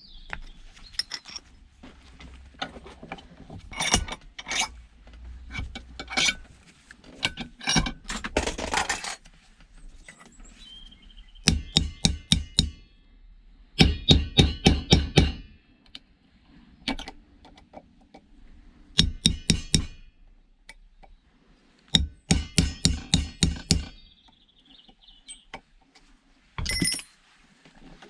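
Metal clinking and scraping as parts of a scrap item are worked loose with hand tools. This is followed by four runs of rapid, evenly spaced strikes, about six a second, as pieces are knocked free.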